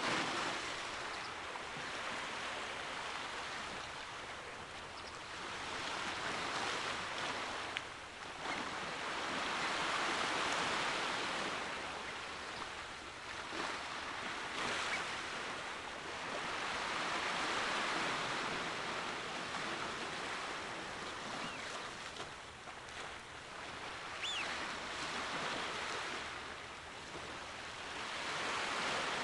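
Sea waves washing against the shore, a hiss of water that swells and fades every few seconds.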